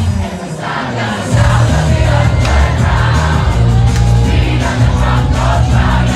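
Live pop music played loud through a concert PA, with singing and crowd noise mixed in. The heavy bass drops away briefly at the start and comes back in full about a second in.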